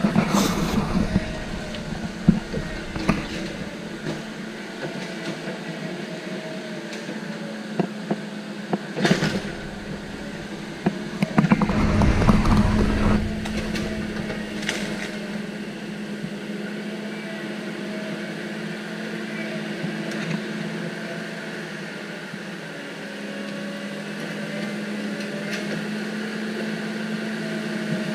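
Heavy diesel equipment engine running steadily, its pitch wavering slightly, with scattered knocks and a louder low rumble about twelve seconds in.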